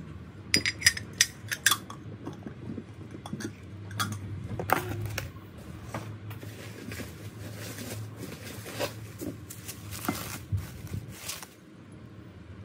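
Glazed ceramic dishes and a bowl clinking and knocking against each other as they are handled and set down: a quick run of sharp clinks about half a second to two seconds in, then single clinks scattered through the rest.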